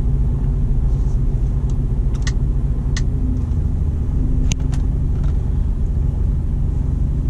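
Mercedes-Benz truck's diesel engine and road noise heard from inside the cab, a steady low rumble as the truck creeps along in slow traffic. A few faint clicks sound over it.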